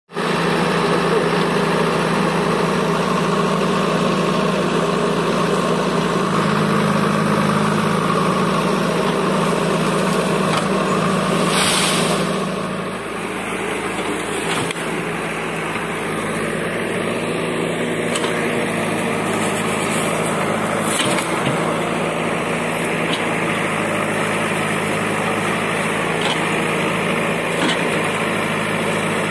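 A JCB backhoe loader's diesel engine runs steadily while its backhoe arm uproots a palm tree. About twelve seconds in there is a short burst of noise, and after it the engine is slightly quieter.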